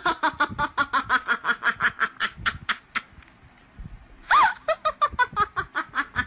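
A person laughing in a long run of quick giggles, breaking off about halfway and starting up again.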